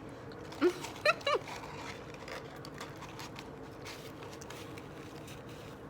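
A brief murmured voice sound about a second in, then a low steady background with faint scattered soft clicks.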